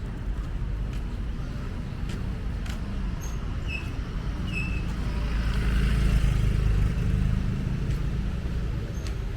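A motor vehicle passing close by, its low engine and tyre rumble rising to a peak about six seconds in and then fading, over steady street background with a few faint clicks and short high chirps.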